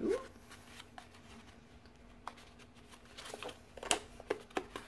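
Faint paper and card rustling with a cluster of short sharp clicks in the second half, the loudest about four seconds in, as a small cardboard advent-calendar box is handled and opened by hand.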